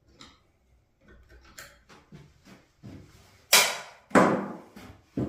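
Knocks and clicks of an old wooden door being worked off its hinges: small clicks and scrapes, then two loud knocks less than a second apart about three and a half seconds in, and another sharp knock near the end.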